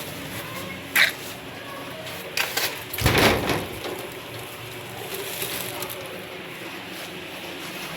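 A few sharp knocks over a steady background hiss: one about a second in, two quick ones a little later, then a louder, longer clatter.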